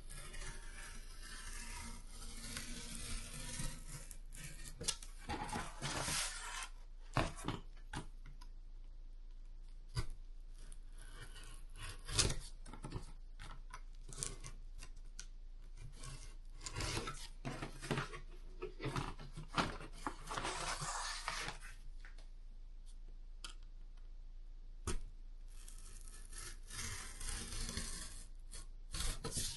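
Craft knife (X-Acto) blade cutting through corrugated cardboard: stretches of scraping strokes broken by sharp clicks and snaps as the blade drags and pops through the board.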